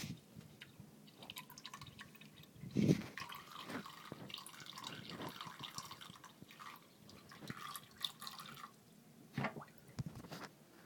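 Water dripping and trickling from a tap in small irregular drips and splashes as a cat laps at it, with a louder knock about three seconds in.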